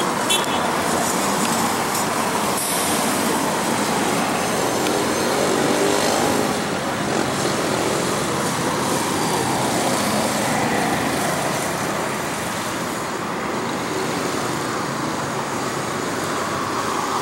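Twin turbofan engines of a Cessna Citation business jet climbing away after takeoff: a steady, even jet rush, with slow gliding tones in the middle as the aircraft draws away.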